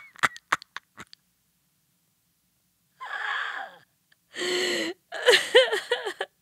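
A quick run of sharp clicks in the first second. After a silence, a sharp breathy gasp, then wordless hummed vocal sounds whose pitch rises and falls in short arcs.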